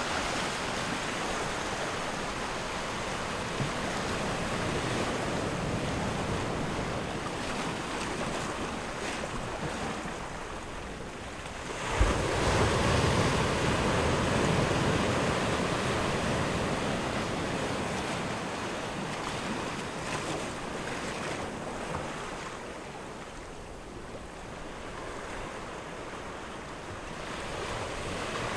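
Wind rushing over the camera microphone, a steady noise that jumps suddenly louder with a knock about twelve seconds in and then slowly eases.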